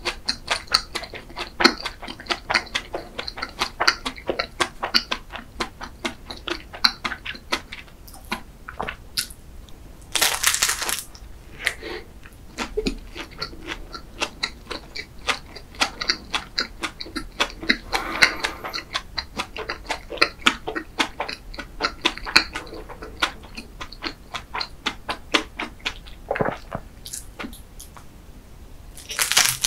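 Close-miked chewing of a chocolate-glazed flaky pastry with chocolate filling: a steady run of wet mouth clicks and smacks, with louder bites about ten seconds in and again at the very end.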